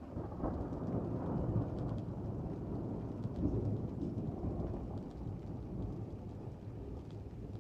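Rolling thunder that swells right away, is loudest from about one to four seconds in, then slowly dies away, over light steady rain.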